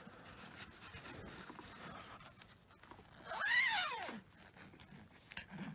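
Faint rustling of the Hoover Convertible's cloth outer bag being handled, then its zipper pulled in one stroke about three seconds in, rising and falling in pitch as the pull speeds up and slows.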